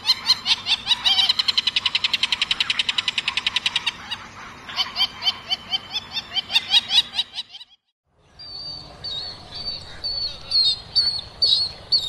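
Jacana calls: a fast, chattering series of repeated notes, about ten a second at their quickest, slowing and then stopping about seven and a half seconds in. After a brief break, a second recording follows with higher, squeakier notes repeated irregularly.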